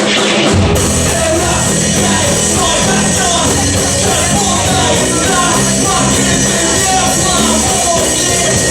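Rock band playing live. The full band comes in less than a second in and plays on steadily.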